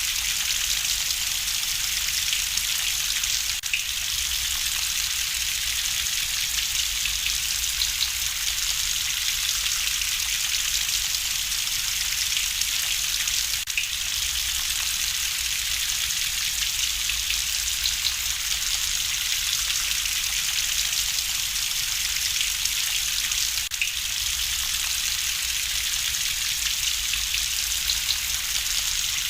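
Steady rain hiss with light crackling from a wood fire in a fireplace.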